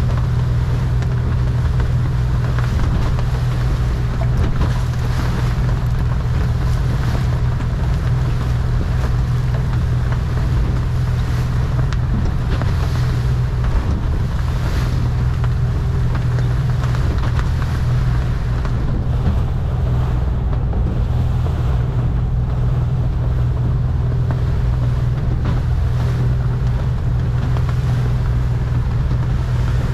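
Boat engine running steadily under way, a constant low hum, with wind buffeting the microphone and water rushing along the hull.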